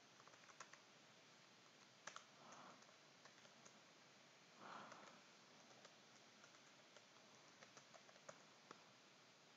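Faint, scattered key clicks of a computer keyboard being typed on, irregular rather than in a steady run.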